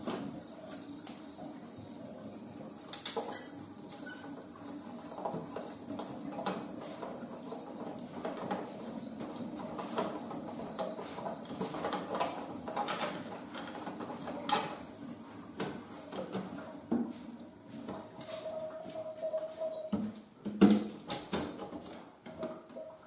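Plastic clicks, scrapes and rattles as the mounting frame of a concealed toilet cistern's flush-plate opening is unclipped and worked loose by hand, with a sharp click about three seconds in and louder knocks near the end.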